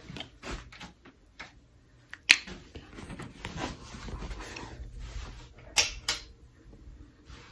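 Handling noise from a phone camera held close to the microphone: scattered clicks and knocks with rustling, the sharpest click about two seconds in and two more close together near the end.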